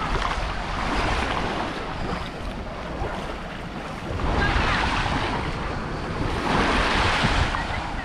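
Small waves washing up on a sandy shore, the wash swelling about a second in and twice more in the second half, with wind rumbling on the microphone.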